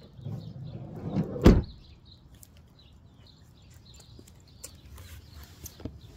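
A van's sliding side door rolls along its track and slams shut about a second and a half in, the loudest sound. Faint high chirps follow.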